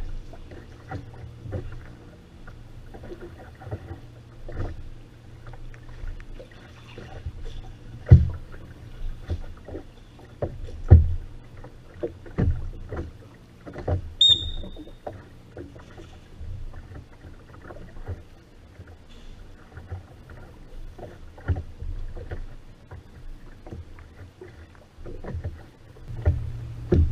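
Rowing boat under oar, Venetian-style rowing: irregular sharp knocks and water sounds over a steady low hum, the loudest knocks about a third of the way in. A brief high beep sounds about halfway through.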